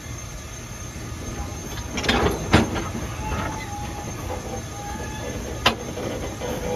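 Narrow-gauge train rolling along the track: a steady rumble of wheels on rail with sharp clacks, the loudest about two and a half seconds in and another near six seconds.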